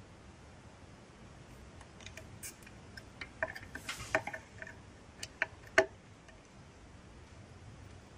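Small, sharp clicks and taps of metal tweezers and a soldering iron tip against a circuit board while a tiny surface-mount resistor is desoldered, a dozen or so scattered through the middle of the stretch, the sharpest about six seconds in.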